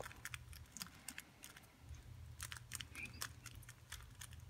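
Plastic 3x3 speedcube turned by hand through a short algorithm: a run of faint, irregular clicks as the layers are turned.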